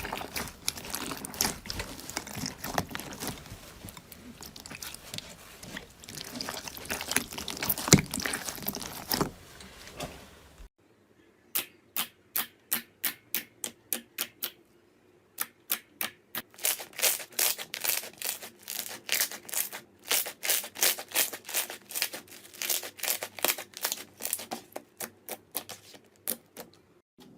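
Slime being squished and pressed by hand. For about the first ten seconds it makes a dense crackling, then after a sudden cut it gives runs of sharp, crisp clicks, several a second, in groups.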